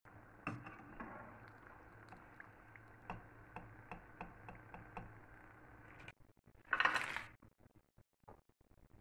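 Potato pieces frying in hot oil in a pan: a steady sizzle with many small crackling pops. The sizzle stops about six seconds in. About a second later comes one short, loud rustle as the fried pieces are tipped off a slotted metal spoon onto a paper towel, followed by a few light clicks.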